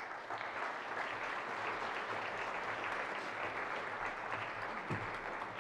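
Audience applauding: dense, steady clapping from a hall full of listeners.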